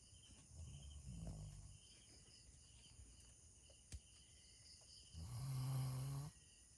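Doberman pinscher snoring in her sleep: a faint breath about a second in, then one loud, low-pitched snore near the end lasting about a second.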